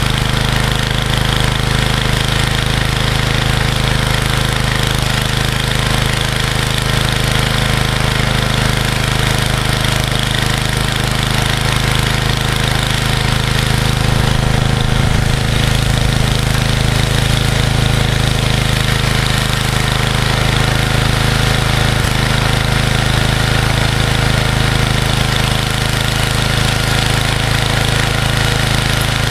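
Snowblower's small gasoline engine running steadily at one constant speed, with no revving.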